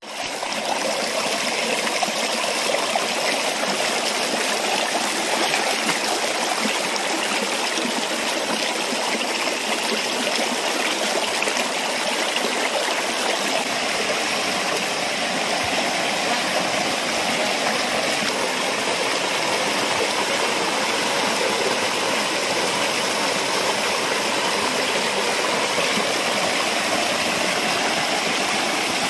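Shallow rocky stream running and splashing over stones: a steady, even rush of water.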